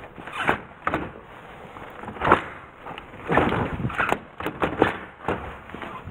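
A metal-framed sliding door frozen shut by ice being yanked again and again, rattling and knocking in its frame in a string of irregular jolts.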